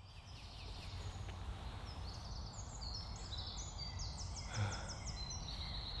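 Birds chirping in quick, high, repeated notes and trills over a steady outdoor background hiss, fading in from silence at the start. A short, dull low sound stands out a little past halfway.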